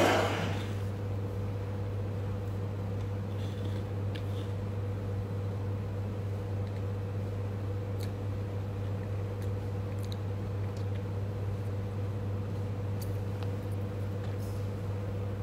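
A steady low hum with a fainter higher steady tone over it, a short rush of noise right at the start, and a few faint scattered clicks.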